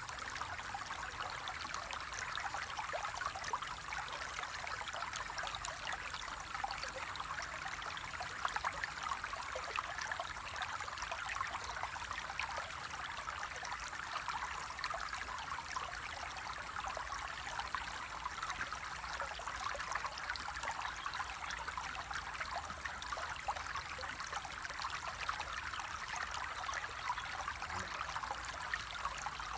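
Flowing water running steadily, an even, unbroken rush with no pauses or changes.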